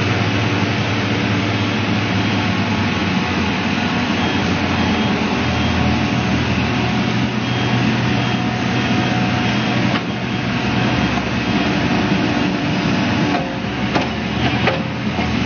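A New Holland crawler excavator's diesel engine running steadily under load, a constant low hum with mechanical noise over it, and a few short knocks near the end.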